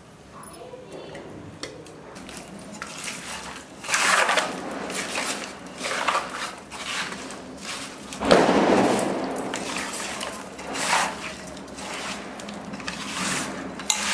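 Fish pieces, chopped onions and chilli powder being mixed by hand in a metal pot: wet rustling and scraping against the pot in irregular bursts, the loudest about eight seconds in.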